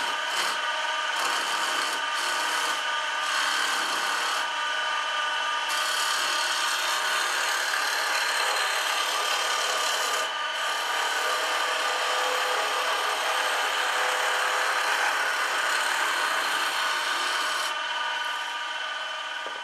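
Wood lathe running while a roughing gouge cuts a spinning square wooden blank round, a continuous rasping cut over the lathe's steady whine. In the first few seconds the cut breaks off briefly several times, then runs on evenly. It stops shortly before the end, leaving the lathe running quieter.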